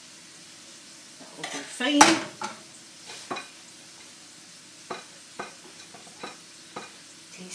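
Light clicks and scrapes of a utensil against a frying pan and plate as fried onions are served, over a steady faint sizzle of frying. About two seconds in, a loud clatter with a brief ring as a pan is set down on the hob.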